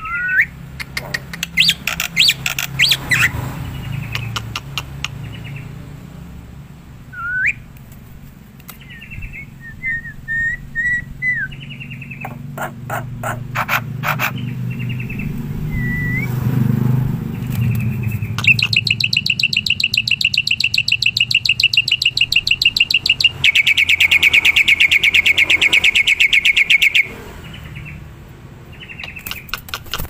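Black-winged starling singing: a string of varied whistled notes and chattering clicks, then a long, fast, rattling trill in the second half that lasts about eight seconds.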